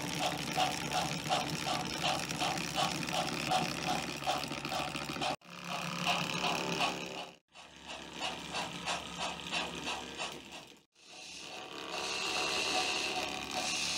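Model train running on its track: a rhythmic mechanical clicking of wheels and drive at about three clicks a second. The sound cuts out abruptly three times, and near the end it becomes a steadier whir with a high tone.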